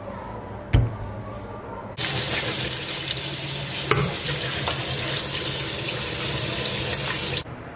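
Kitchen tap running onto cauliflower florets in a metal colander, the water splashing over them as they are rinsed. The water starts about two seconds in and shuts off suddenly near the end. A single sharp knock comes a little under a second in, before the water.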